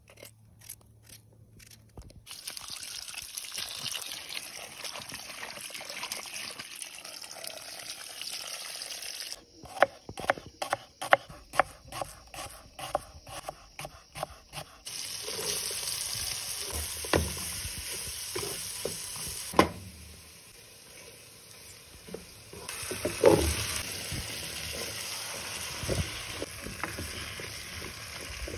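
Kitchen prep and frying: a knife chopping shallots on a wooden cutting board in a run of quick, even strokes, and diced potatoes sizzling in a pot with a steady hiss while a wooden spoon stirs and knocks against it.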